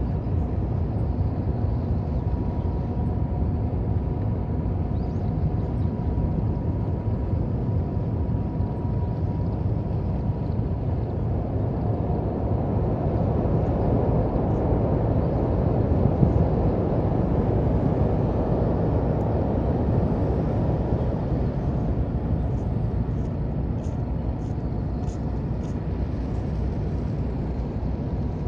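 Steady low rumble of a car ferry's machinery heard on board while the ship berths, with a faint steady whine over it. The rumble grows louder about halfway through and then eases off again.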